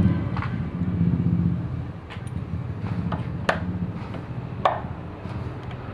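Yamaha 15 hp outboard motor running steadily, with three sharp clicks in the middle.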